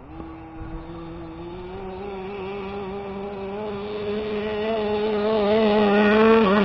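Small two-stroke gas engine of a 1/5-scale Baja 5T-style RC truck running at a fairly steady high speed. It grows steadily louder as the truck comes closer, and the pitch wobbles up and down with throttle changes near the end.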